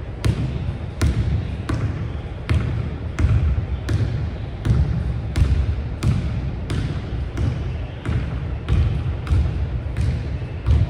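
Basketball dribbled on a hardwood gym floor: a steady bounce about every 0.7 seconds, each echoing in the large hall, coming a little quicker near the end.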